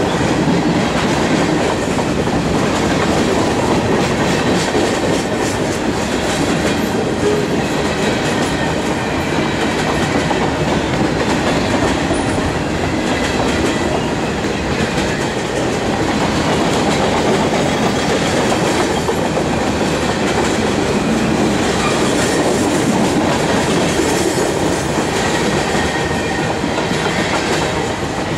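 A freight train's covered hopper cars rolling past close by: a steady, loud rumble of steel wheels on rail, with clickety-clack as the wheels cross rail joints.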